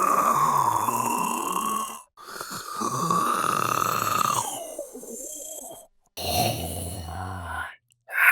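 Gollum's creature voice: raspy, throaty groaning and gurgling in three drawn-out vocal bursts with short breaks between them, another starting at the very end.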